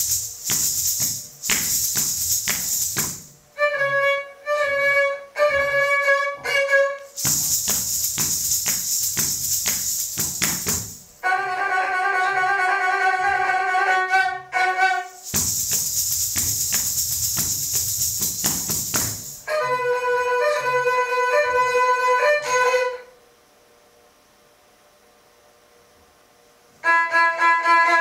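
Erhu-style upright fiddle bowing short phrases of held and repeated notes, broken up by three stretches of harsh, hissing noise. It drops almost to silence for a few seconds near the end, then a last note slides down in pitch.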